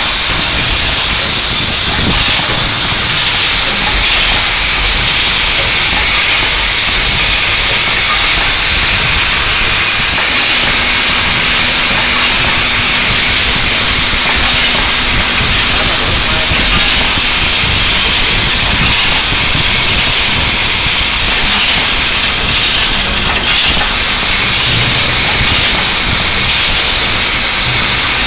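Screw-counting packaging machine running, its vibratory bowl feeder shaking a load of screws: a steady, loud hiss-like rattle, with a low steady hum joining about ten seconds in.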